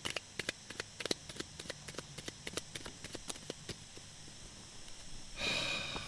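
Handling and shuffling a deck of cards: a run of light, irregular clicks and taps, then a breathy sigh near the end.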